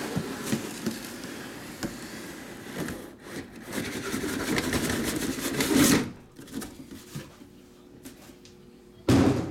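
Cardboard product boxes and their shipping case being handled: scraping and rustling for about six seconds, growing louder, then quiet, with a short loud bump near the end.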